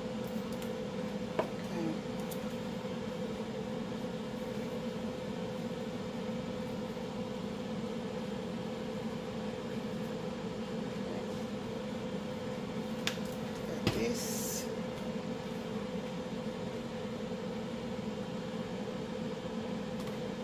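Steady mechanical hum with a constant tone, like a kitchen appliance or fan running. A few light clicks from handling spice containers, and about fourteen seconds in a knock followed by a brief shaking rasp.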